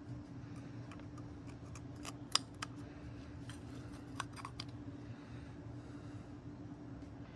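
Small clicks and light taps of an oil filter cartridge, its rubber seal and the plastic filter housing being handled, the loudest a little over two seconds in and a few more around four seconds, over a steady low hum.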